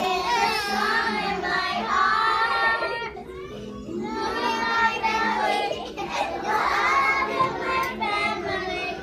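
A group of young children singing a song together, phrase by phrase with short breaks between phrases.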